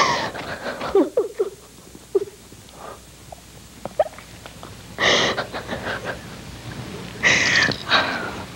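A woman sobbing, with short catches of voice and loud ragged gasping breaths about five and seven seconds in.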